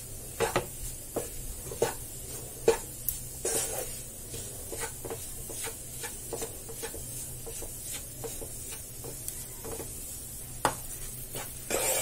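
Wooden spatula stirring and scraping flour roasting in ghee in a nonstick kadhai, with irregular light knocks of the spatula against the pan, a few a second.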